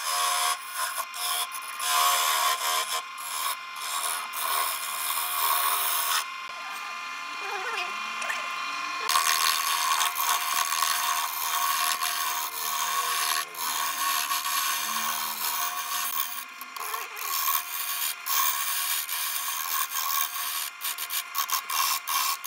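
A chisel cutting a spinning wood blank on a wood lathe: a continuous rasping scrape of shavings coming off, with a steady motor whine under it. The cut breaks off briefly many times as the tool lifts, and eases off for a few seconds about six seconds in.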